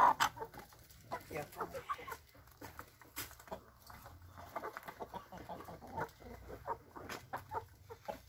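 Chickens clucking in short calls, one loud call right at the start, with many small taps and clicks in between.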